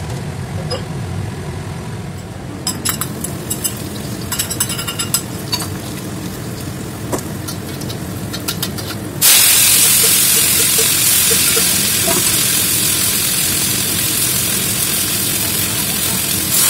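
Garlic frying in a wok with a spatula clicking and scraping against the pan, then about nine seconds in a sudden loud, steady sizzle as chopped leafy greens go into the hot oil.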